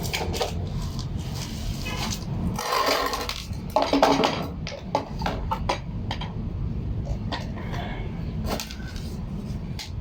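Scattered clinks and knocks of tools and parts being handled, with two louder scraping rushes about three and four seconds in, over a low steady rumble.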